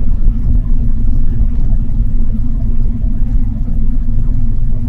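Helicopter engine and rotor heard from inside the cabin: a loud, steady low rumble with a constant hum, as the helicopter comes in on its approach to land.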